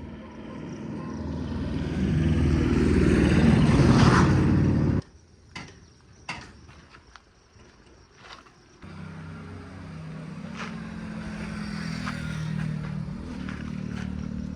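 Heavy diesel engine of earth-moving machinery working, growing louder over the first five seconds and then cutting off abruptly. After a few seconds of low sound with scattered knocks, an engine runs steadily again at a lower level.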